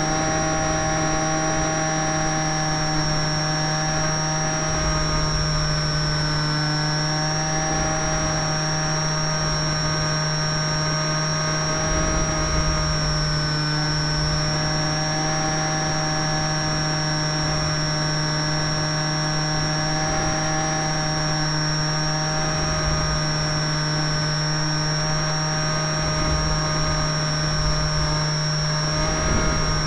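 Model canard aircraft's motor and propeller running steadily in flight, heard from on board: a low drone with a high steady whine whose pitch dips slightly now and then, over wind rumbling against the microphone.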